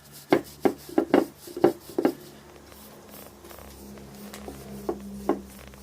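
A quick run of about six sharp knocks and taps of hard objects being handled, then two more near the end. Under the later knocks a low steady hum sets in about halfway through.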